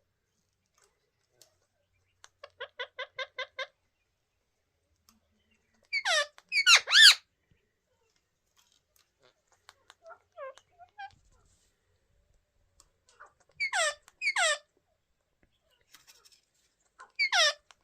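Indian ringneck parrots calling: first a quick run of short chattering notes, then loud harsh screeches that fall in pitch, coming in groups of two or three, with a few faint chirps between.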